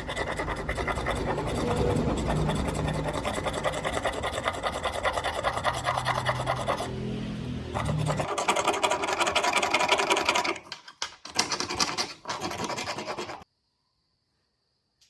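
Rapid rasping and scraping of a hand tool working against a hard material, like filing or sanding. It eases briefly about halfway through, turns choppier and broken near the end, and cuts off abruptly.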